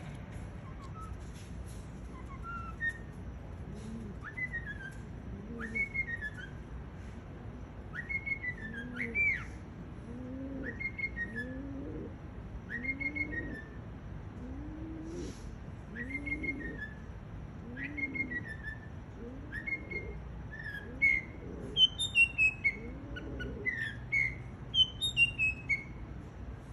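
Mockingbird singing at night: short down-slurred whistled phrases repeating every second or two, turning into quicker, higher notes near the end. Beneath it a lower call repeats about once a second.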